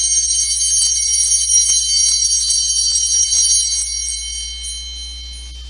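Altar bells (sanctus bells) shaken repeatedly, a bright high jingling ring that dies away near the end, marking the elevation of the consecrated chalice.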